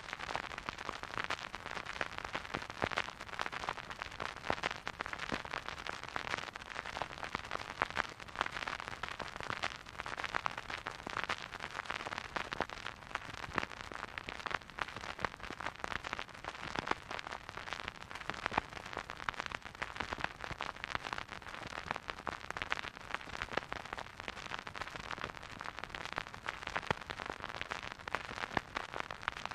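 Record-player surface noise: a dense, steady crackle of fine clicks and pops over soft hiss from a stylus riding a vinyl record, with no music.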